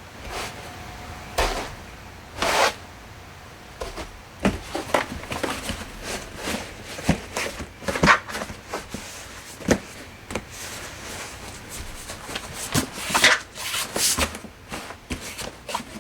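Laundry basket being handled: an uneven string of knocks, clicks and creaks, with a few longer scraping swishes.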